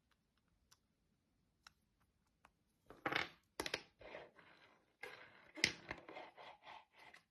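Small hard clicks and short scraping rasps of a fingerboard and its wheels being handled on a hard surface, starting about three seconds in and coming in quick irregular bursts.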